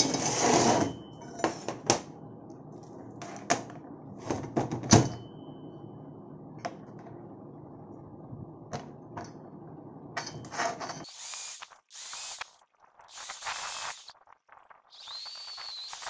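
Small steel plates clinking and knocking as they are handled and set down on a steel workbench, over a steady low hum. Near the end, a drill bit cuts into a steel block in three short bursts, the last with a brief squeal.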